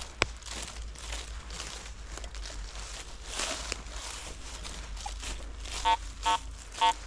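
Footsteps through dry leaf litter, then near the end three short, loud, buzzy beeps from a Garrett AT Pro metal detector signalling metal in the ground.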